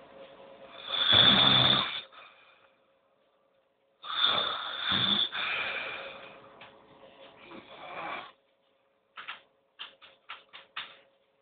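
A man snoring heavily while sleeping off too much drink: two long, loud snores with a low rattle. They are followed near the end by a quick run of about seven short, sharp sounds.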